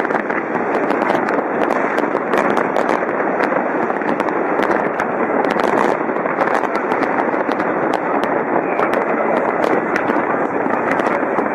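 A fireworks display going off continuously: a steady din of bursts with many sharp cracks and pops throughout.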